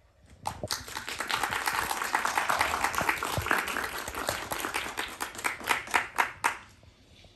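Audience applauding at the end of a performance: a burst of clapping that starts about half a second in, thins out to a few last separate claps, and stops shortly before the end.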